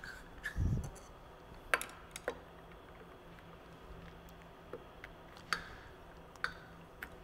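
Laboratory glassware and metal clamps clicking and tapping as a distillation setup is fitted back together: a dull thump just under a second in, then about six sharp separate clicks, over a faint low hum.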